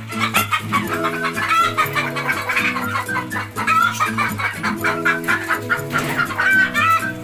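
Desi hens clucking over background music.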